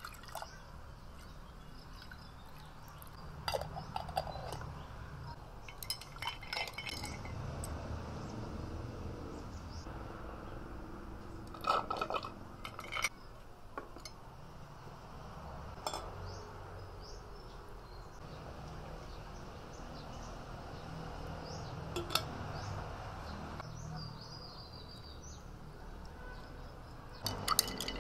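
Juice poured from a jar over ice in a glass mug, then ice cubes clinking against the glass as the drink is stirred with a straw. The clinks come scattered, with the busiest runs about twelve seconds in and near the end.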